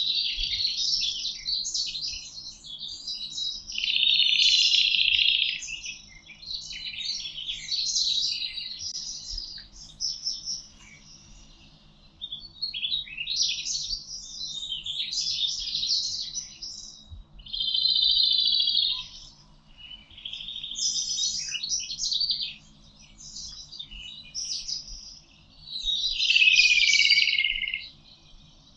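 A chorus of songbirds singing, with phrases of chirps and trills following one another every couple of seconds and some overlapping. Near the end one song slides down in pitch.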